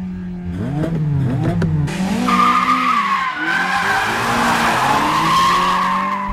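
Racing car sound effects: engine notes rising and falling through revs and gear changes, then from about two seconds in a long, wavering tyre squeal as a car slides through a corner.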